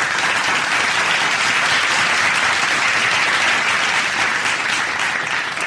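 Audience applause, a dense steady clapping that eases off slightly at the end.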